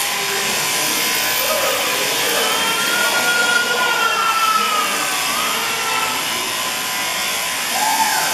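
Electric sheep-shearing handpiece running steadily as its cutter shuttles back and forth over the comb, clipping through the fleece. It gives a continuous high whir with a faint whine that wavers in pitch.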